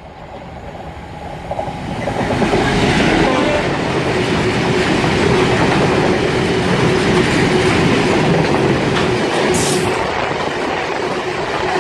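Class 66 diesel freight locomotive, with its EMD two-stroke V12 engine, passing through the station on the rails. It grows louder over the first two seconds, then holds a loud, steady sound of engine and wheels with a steady engine tone.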